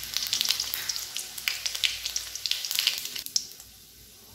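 Panch phoron, dried red chillies and bay leaves sizzling in hot mustard oil, with many sharp pops from the seeds. The sizzling drops away sharply about three seconds in.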